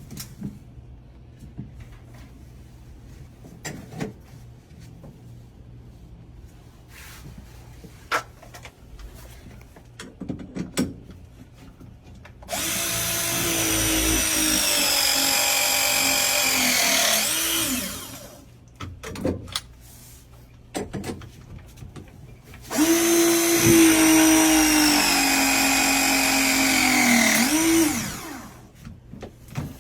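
Electric power drill running twice, about five seconds each time, its motor pitch dropping as it slows at the end of each run. Scattered knocks and clicks come before and between the runs.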